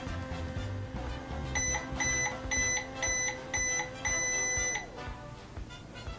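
Microwave oven running with a steady hum, then beeping five short times and once longer as it finishes, at which point the hum stops. Background music plays underneath.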